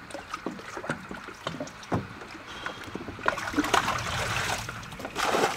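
Small waves lapping and splashing against the hull of a boat at anchor, in irregular little splashes, with two louder rushes of water noise in the second half.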